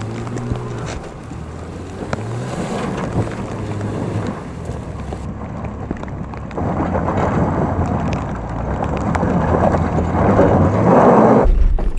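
A Jeep's engine running at low, steady revs as it crawls along an off-road trail. In the second half a rushing noise builds over the engine and is loudest near the end before cutting off abruptly.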